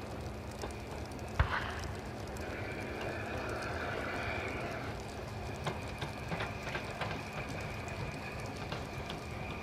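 Southern Railway Schools Class three-cylinder 4-4-0 steam locomotive drifting slowly forward with its train, under a steady hum and background noise. A sharp knock comes about a second and a half in, a hiss rises and falls in the middle seconds, and a few lighter clicks follow later.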